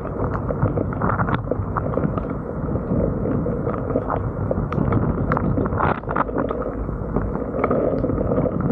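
Wind buffeting a 360 camera's microphone in a steady rumble, with scattered ticks of raindrops striking the camera.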